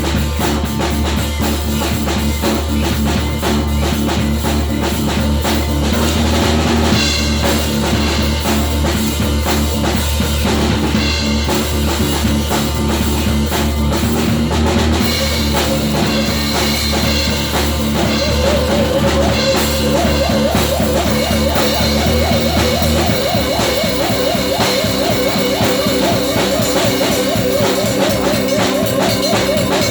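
Rock-style music played on a full drum kit with bass and other instruments, the drums keeping a steady beat. About two-thirds of the way in, the deep low bass drops away and a wavering higher melodic line carries on over the drums.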